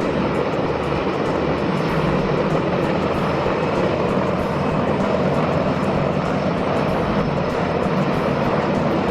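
Mi-26 heavy-lift helicopter running loud and steady with a Tu-134 airliner slung beneath it: the continuous noise of its twin turboshaft engines and rotor under heavy load.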